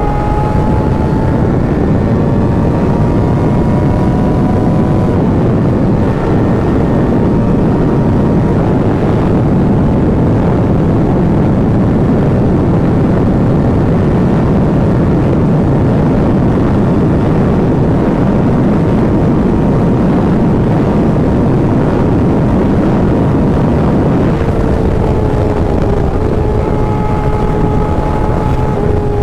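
Kawasaki ZX-6R's inline-four engine running steadily at high revs while riding, over a loud steady rush. Near the end the engine note sinks in pitch.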